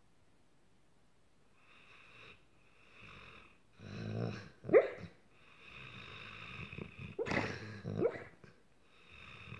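A sleeping, dreaming dog making noises: wheezy breathing that starts about a second and a half in and builds up, broken by short sharp cries that slide quickly in pitch, the loudest near the middle and two more a few seconds later.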